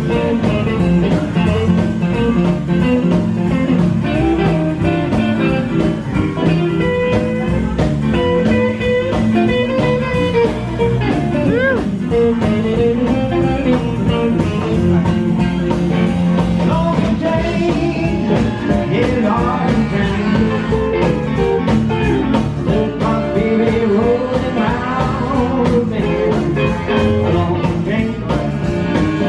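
Live band music: electric guitar, upright bass, drum kit and electric piano playing together at a steady, loud level.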